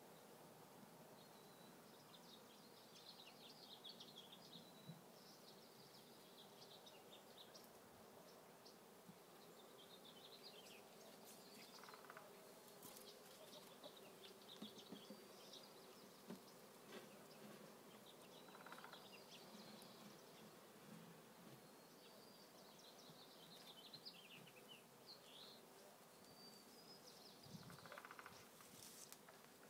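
Faint, steady buzzing of a honeybee colony around a newly installed hive, with high bird chirps now and then.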